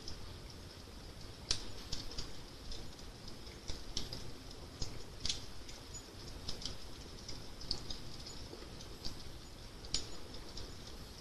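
Fire crackling: irregular sharp pops and snaps, a few each second, over a low steady rumble.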